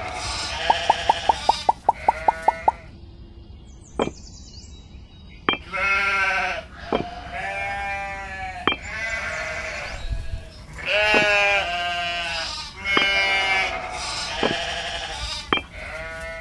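Sheep bleating again and again, each bleat a wavering call about a second long. In the first few seconds there is a quick run of sharp clicks, about five a second, and between the bleats come single sharp clicks as miniature clay bricks are set down.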